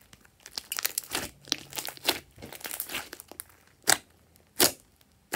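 Glossy slime being squished, folded and pressed by hand: a dense run of sticky clicks and crackles, then a few louder single pops near the end.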